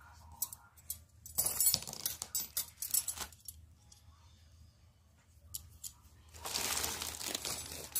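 Steel spiral dough hooks of a hand mixer clinking against each other in a few short bursts as they are handled. Near the end, a plastic bag rustles and crinkles.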